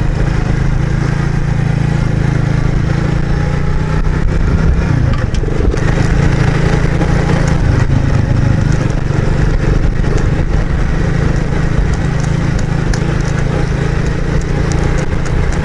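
Alpha motorcycle's small single-cylinder four-stroke engine running under way on a dirt track. Its note drops briefly about five seconds in, then picks up again and holds steady.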